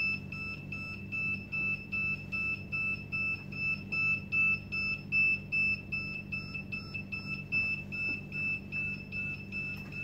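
A drone's high-pitched electronic warning beeper sounds as the drone sits on the floor, giving even, repeated beeps at about two to three a second. It is a warning signal, which the pilot takes as a bad sign.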